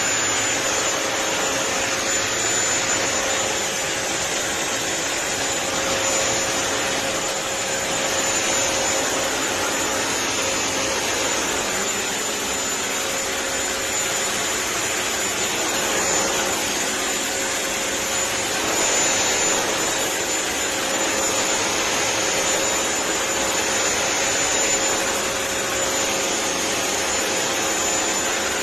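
BISSELL CrossWave wet-and-dry floor cleaner running steadily, a rushing suction noise with a constant high-pitched whine.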